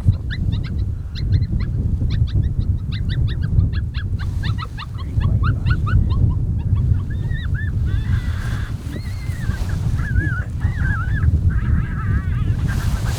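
Coyote vocalizations: a fast run of high yips for about six seconds, then wavering, warbling howl-like calls, over a steady low rumble.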